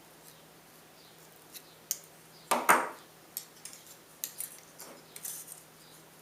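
Thin tin-can sheet metal and hand tools being handled: scattered light metallic clicks and taps, with one louder clank about two and a half seconds in.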